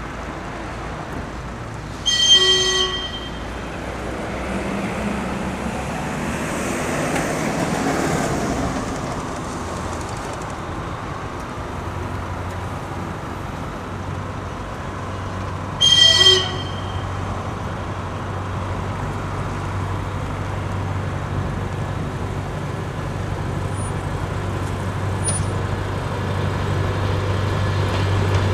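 A DR1A diesel multiple unit's horn gives two short toots, the first about two seconds in and the second some fourteen seconds later. Between and after them the train's diesel engine runs with a low rumble that grows louder toward the end.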